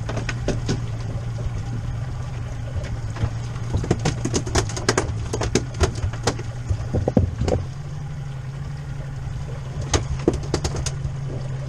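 Boat engine idling with a steady low hum, with bursts of sharp knocks and clicks midway and again near the end.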